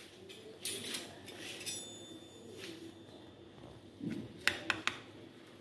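A kitchen knife cutting into a potato gratin in a glass baking dish: faint clinks and scraping, then three sharp clicks close together near the end as the blade knocks against the glass.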